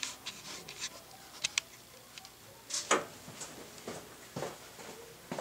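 Scattered light clicks and taps, with a louder knock about three seconds in.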